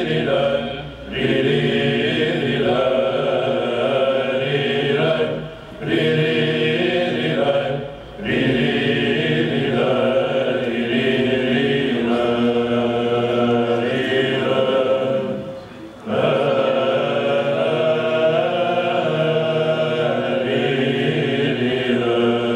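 Male Byzantine chant choir singing a melody in unison over a held low drone (ison), in plagal first mode. The singing breaks for short breaths about four times.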